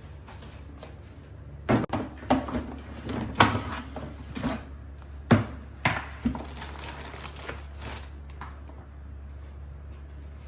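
Irregular knocks and clatters from kitchen handling, about a dozen over a few seconds and loudest in the middle, over a steady low hum.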